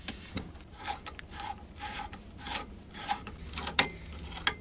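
Flathead screwdriver turning a threaded plug (puck) into a port of an Armalite M-15 tunable muzzle brake: a run of short metal-on-metal scrapes and clicks, roughly two a second, with a sharper click near the end.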